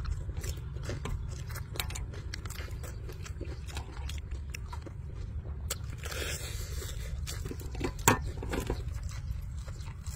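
Close-up eating of crispy deep-fried chicken: biting into and tearing the crunchy fried skin and chewing, heard as a rapid scatter of small crackling crunches with one sharp, louder snap about eight seconds in. A steady low rumble runs underneath.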